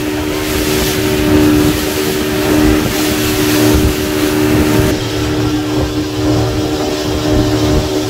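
Speedboat engine running steadily at speed, with water rushing and splashing along the hull and wind buffeting the microphone.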